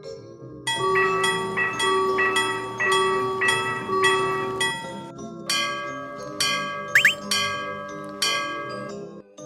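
Railroad crossing warning bell ringing in a steady repeated clang of about two strikes a second, pausing briefly about halfway through and then resuming a little slower. Two short rising whistles sound about seven seconds in.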